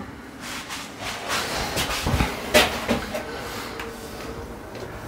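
Scattered handling knocks and clicks, about half a dozen, with the sharpest click about two and a half seconds in: tools and small plastic cover caps being handled and pressed into a folding glass bath screen's aluminium wall profile. No drill is running.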